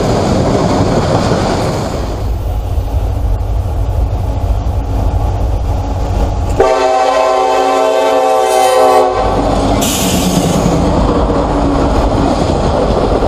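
Diesel freight trains passing at trackside: freight cars rumbling and clattering over the rails. Just past the middle, a locomotive air horn sounds one steady chord for about two and a half seconds.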